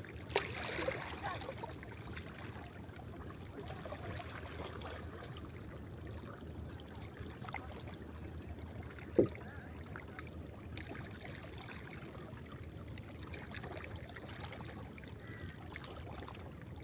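Steady low rumble of river water and wind at the water's edge. A single short thump about nine seconds in.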